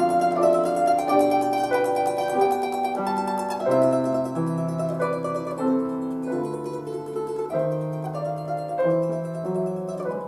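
Instrumental performance of a Russian folk-song arrangement: a plucked string instrument plays the melody over held lower notes, at a steady moderate loudness.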